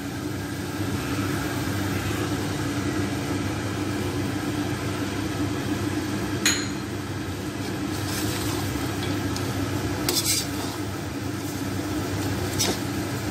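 Chicken karahi cooking in a metal wok: a steady low hum with a hiss under it, broken by three sharp clinks of a metal spatula against the pan, about halfway through, again a few seconds later, and near the end.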